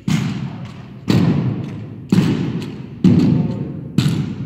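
Drill rifles handled by a team in unison on a count: five sharp, echoing claps about a second apart, as the rifles come down off the shoulder to the hardwood floor.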